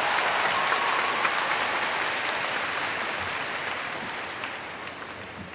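Audience applauding, the applause dying away steadily.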